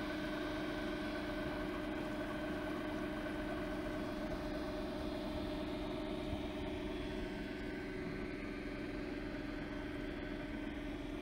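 A 2,000-watt e-bike motor driving a boat's outboard propeller, giving a steady whine of several held tones over the rush of water past the hull. It runs at a constant, partial throttle, somewhere between half and three-quarters speed.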